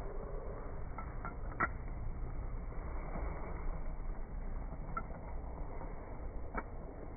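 Slowed-down outdoor background noise, a low muffled rumble, with a few faint clicks: a cluster around a second and a half in, one about five seconds in and one near the end.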